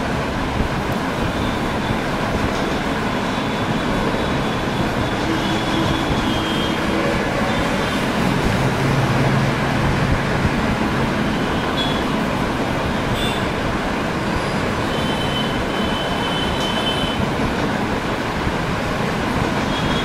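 Steady background noise, a constant rumble and hiss with a few faint passing tones.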